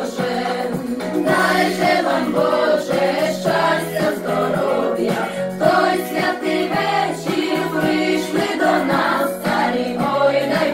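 A group of carolers singing a Ukrainian Christmas carol (koliadka) together, with a steady low note held underneath.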